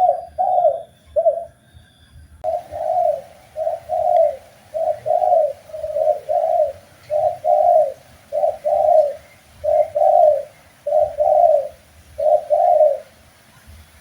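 Spotted dove (tekukur) cooing: a steady series of low, repeated coo phrases about once a second, with a short pause about two seconds in, stopping near the end.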